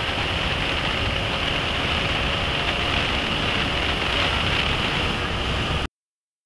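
Steady rush of wind over the microphone of a riding scooter at speed. It cuts off abruptly about six seconds in.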